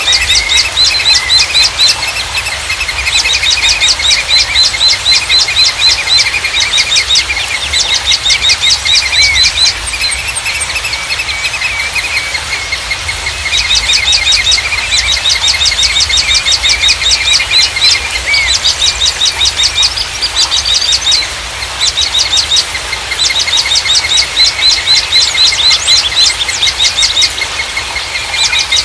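Small songbirds singing in fast trills of sharp high chirps, in phrases of a few seconds with short breaks between them.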